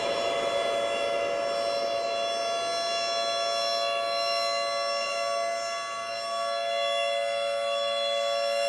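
Air raid siren sounding a steady two-note wail at full speed after winding up, dipping slightly in loudness about six seconds in.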